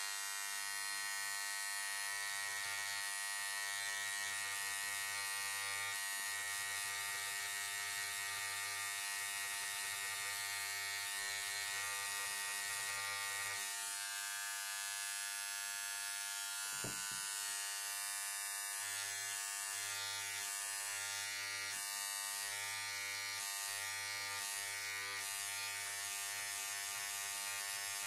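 Air scribe buzzing steadily as its stylus chips rock matrix away from a trilobite fossil; the pitch drops slightly about halfway through.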